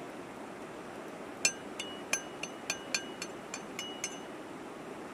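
Pestle pounding in a small mortar: about ten sharp clinking strikes, roughly three or four a second, starting about a second and a half in and stopping about a second before the end.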